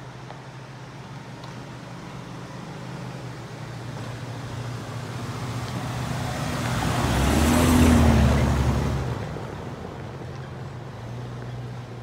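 Jeep Grand Cherokee WJ driving past on a dirt road: engine and tyres on the gravel grow louder as it approaches, are loudest about eight seconds in as it passes close by, then fade away with a slight drop in pitch.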